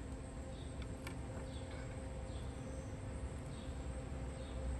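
Quiet outdoor background: a steady low rumble with a faint hum, faint short high chirps now and then, and two light clicks about a second in.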